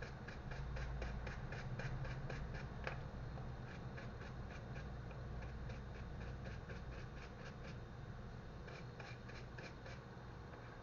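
Light, quick clicks and scratching from small hand tools working on a quartz watch, several a second at first and sparser in the middle, over a steady low hum.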